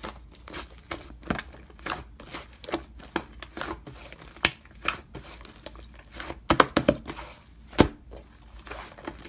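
Slime being handled, giving irregular small crackles and pops, with a few louder snaps about two-thirds of the way through.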